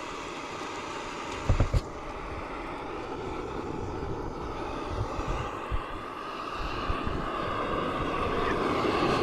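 MSR PocketRocket gas canister stove burning under a griddle: a steady rushing roar that grows louder in the last few seconds, with a few light knocks about a second and a half in.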